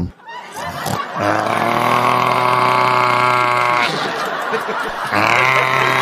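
A man's voice imitating loud snoring: two long, steady, droning groans, the first starting about a second in and lasting over two seconds, the second starting about five seconds in.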